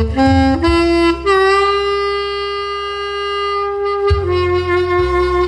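Saxophone playing a slow melody over a backing track with bass: a few short notes, then one long held note of about three seconds, then a step down to another held note.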